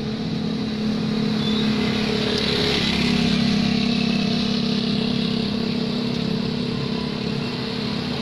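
Engine of a road vehicle running steadily as it moves along a wet city road, with tyre and road noise under a low hum. It gets a little louder about three seconds in as another vehicle comes close alongside.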